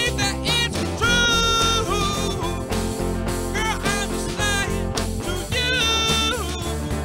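A band playing: drums and bass under a lead line of held notes that bend in pitch, from a group of rhythm guitar, lead guitar, electric banjo, bass and drums.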